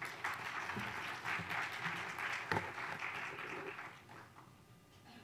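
Audience applauding, a dense patter of many hands clapping for about four seconds that then dies away.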